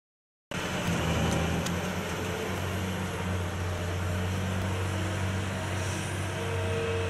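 Heavy demolition machinery's diesel engine running steadily with a low hum, starting abruptly, with a faint higher steady tone joining near the end.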